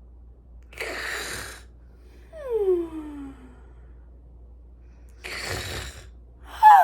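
A person snoring in an exaggerated way: a short rasping snore on the in-breath, then a pitched tone sliding down on the out-breath, twice.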